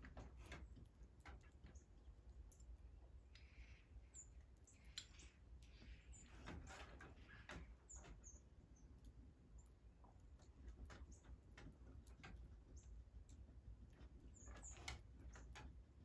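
Faint, short, sharp chip calls from a ground-feeding flock of northern cardinals and other small birds, scattered irregularly through, over a low steady hum.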